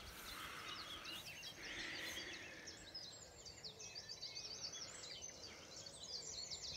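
Dawn chorus: many birds singing at once, a faint, dense stream of short high chirps and trills.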